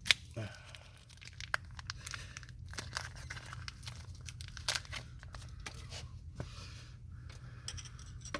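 Crinkling and rustling of handled packaging or wrapping, with scattered small clicks and a sharp tap just after the start, over a low steady hum.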